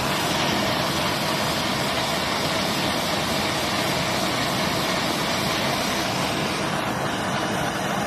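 Handheld gas torch burning steadily, its flame heating a rust-seized brake wheel cylinder to free the stuck parts.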